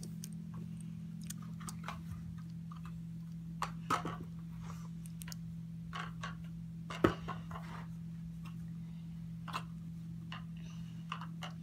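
Scattered small clicks and taps of a die-cast toy monster truck being handled and turned in the fingers, over a steady low hum; the sharpest click comes about seven seconds in.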